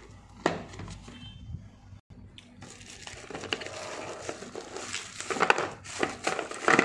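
Unpacking a retail box: a sharp click as the cardboard box is opened, then white tissue-paper packing crinkling and rustling as it is pulled out of the tray, with a few sharp clicks near the end.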